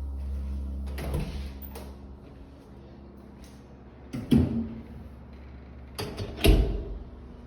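A low vibrating hum carried through an apartment building's stairwell, dying away a second or two in. Later come two loud thumps, about four and six and a half seconds in.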